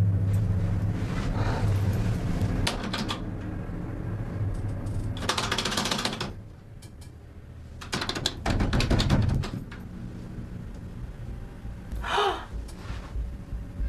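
Rapid clicking and knocking from elevator buttons being pressed over and over, with two denser noisy stretches of clatter, about five and eight seconds in.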